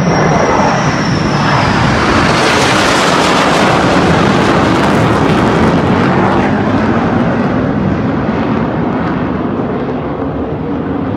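Formation of three jet aircraft passing overhead: a loud jet roar that builds over the first couple of seconds, holds at its loudest for a few seconds, then eases off slightly toward the end.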